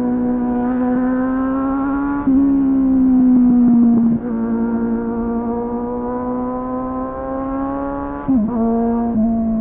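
Suzuki GSF 600 Bandit's inline-four engine running under way through an aftermarket slip-on exhaust with a dB-killer, heard onboard. The engine note is held fairly steady, with short breaks about two seconds in, about four seconds in, and a quick dip and recovery just past eight seconds.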